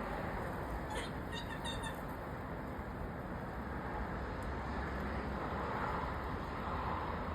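A squirrel's short, high chirping calls in a quick cluster about a second in, a call the uploader links to defence, over a steady background rumble.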